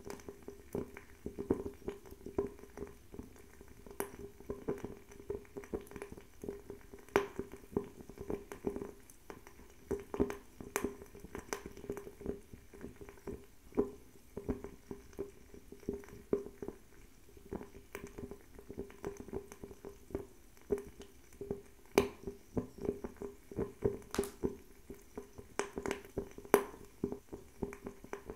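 Fire crackling: irregular sharp pops and snaps, a few of them much louder, over a steady low hum of burning flame.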